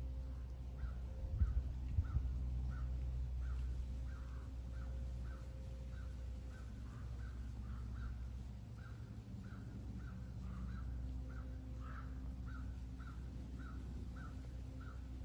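A bird repeats a short call about twice a second, over and over, above a low steady rumble.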